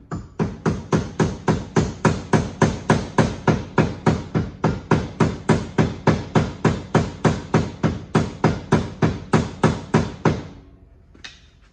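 Hammer striking metal in a fast, even rhythm, about three to four blows a second for some ten seconds, stopping near the end. It is driving a new bushing into the front leaf spring eye of a Club Car DS golf cart.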